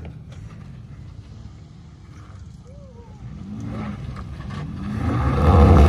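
Toyota Tacoma pickup's engine revving under load as it crawls over rocks, the pitch rising and falling with the throttle and swelling to a louder rev near the end.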